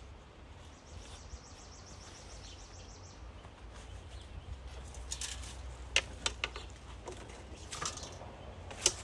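Outdoor background with a low steady rumble and a faint, fast bird trill in the first few seconds, then a handful of sharp knocks and clicks in the second half, the loudest two near the end.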